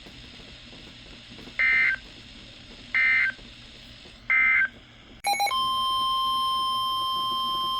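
Emergency Alert System digital data tones: three short warbling bursts about a second and a half apart, the SAME end-of-message code closing the previous warning. A brief data squawk follows, then the steady NOAA Weather Radio 1050 Hz warning alarm tone starts about five and a half seconds in, announcing the next warning.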